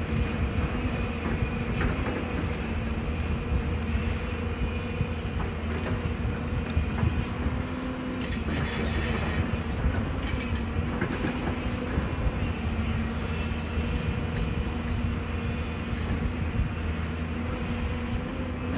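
Excavator's diesel engine running steadily with a hum from its hydraulics, with scattered metallic knocks and a brief hiss about halfway through.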